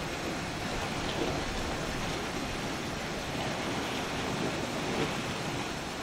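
Sea water washing and churning against a rocky shoreline: a steady surf noise with small swells in loudness.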